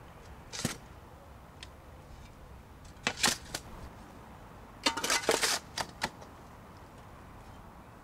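A spade scooping soil out of a metal wheelbarrow and tipping it onto a soil mound, making short bouts of gritty scraping and crunching. There is a brief one under a second in, another about three seconds in, and a longer rattling bout about five seconds in.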